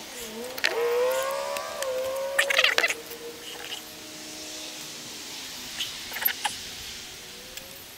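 A long, drawn-out animal call that rises and then holds its pitch for about two seconds before trailing off, with a few sharp clicks partway through and again later.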